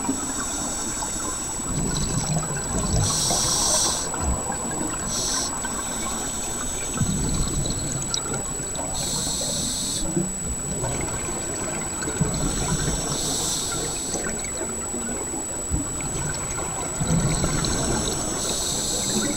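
Scuba diver breathing through a regulator underwater: a rush of exhaled bubbles about every four to five seconds, with the low rumble of the water between breaths. A thin steady high tone runs underneath.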